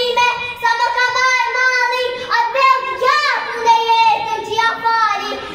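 A young girl singing solo without accompaniment, holding long notes. About three seconds in, one note swoops up and back down.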